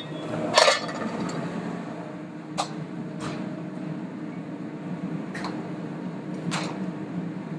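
Steady mechanical hum of a kitchen ventilation fan, with a few short sharp knocks of utensils spread through it.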